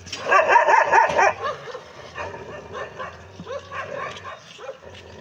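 Street dogs barking and yelping: a dense burst of overlapping barks in the first second or so, then lighter, scattered barks.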